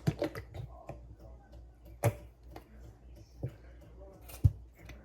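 A few separate sharp knocks and clicks of containers being handled on a kitchen counter, the loudest about two seconds in and again near the end.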